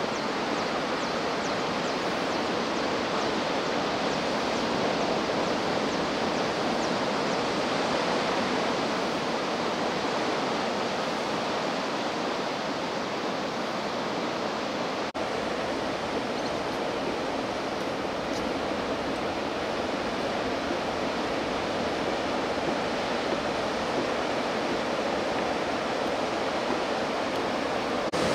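Ocean surf breaking on a beach: a steady wash of wave noise with no distinct single crashes, briefly dipping for an instant about halfway through.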